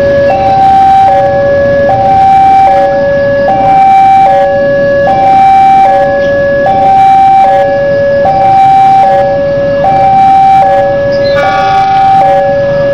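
Electronic two-tone level-crossing warning alarm, alternating steadily between a higher and a lower pitch, each held just under a second, as a train approaches. Near the end, a locomotive horn sounds briefly over it.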